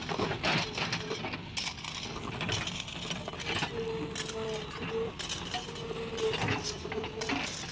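JCB backhoe loader at work: irregular metallic clanks and knocks, with a steady whine that comes and goes.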